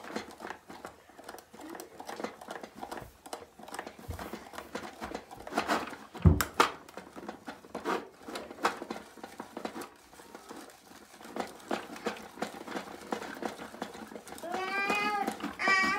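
Rapid, irregular plastic clicking and squishing of a toy slime maker's mixing cup being pumped and twisted by hand, stirring slime that is starting to thicken, with a thump about six seconds in.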